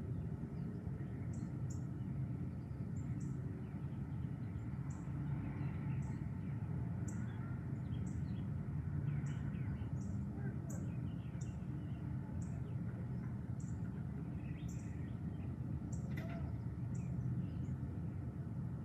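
Birds chirping and singing, with one short, high chirp repeating about once a second, over a steady low rumble.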